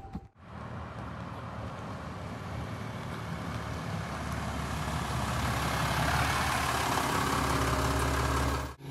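A truck engine running, its hum and noise growing steadily louder as the vehicle and the microphone come close together.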